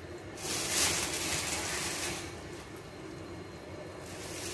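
Rustling hiss of crisp fried onions being sprinkled by hand over a bowl of pasta, once for about two seconds and again near the end.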